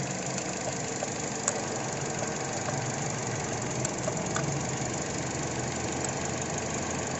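Toyota Corolla Altis four-cylinder engine idling steadily with a new ignition coil pack fitted, running smoothly without the earlier misfire.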